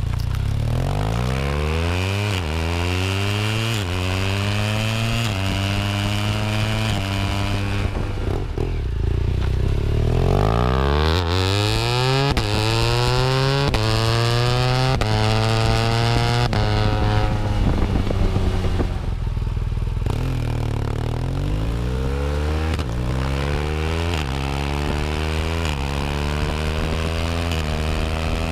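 BMW R1200R motorcycle's boxer twin accelerating through the gears, its pitch climbing and then dropping back at each upshift. It eases off twice, about a third and about two-thirds of the way through, before pulling through the gears again.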